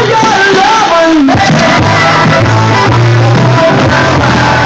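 Loud music with a singing voice over a steady bass line.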